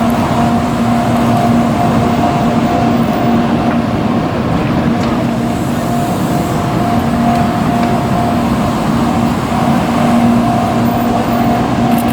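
Japanese level-crossing alarm ringing in a repeating two-tone pattern over a steady, loud rushing noise of a Shinkansen train running through the crossing.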